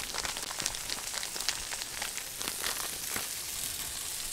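Food sizzling on a hot Blackstone flat-top griddle: a steady hiss with many small crackling pops.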